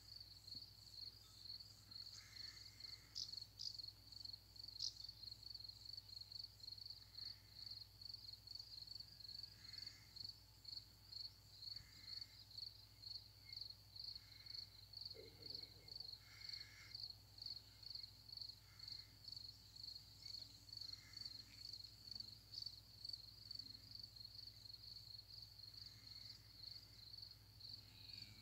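Faint field crickets chirping steadily, a high-pitched chirp repeating about twice a second.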